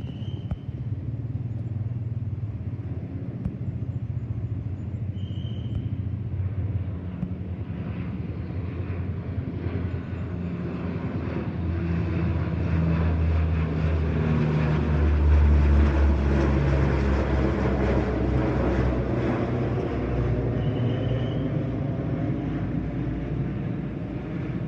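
Lockheed C-130 Hercules four-engine turboprop flying overhead: a low propeller drone and rumble that swells to its loudest a little past halfway, then eases as it moves away. A hiss above the drone sweeps in pitch as the aircraft passes.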